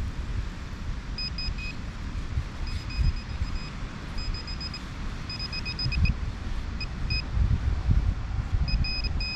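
Metal detecting pinpointer probe giving short high beeps in irregular clusters and quick runs as it is worked through the sand, signalling buried metal close by. Wind buffets the microphone throughout.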